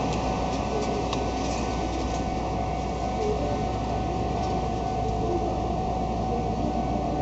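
A train running past: a steady rolling rumble of wheels on rails with a faint steady tone, and a few light clicks in the first couple of seconds.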